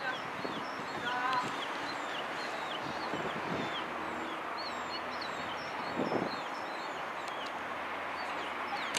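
Small birds chirping again and again, short falling chirps over a steady outdoor background noise, with a brief low thump about six seconds in.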